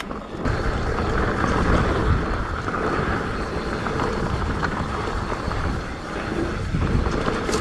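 Mountain bike riding along loose dirt singletrack: steady wind noise on the microphone over the rumble of knobby tyres rolling on the dirt, with a few small clicks and rattles from the bike.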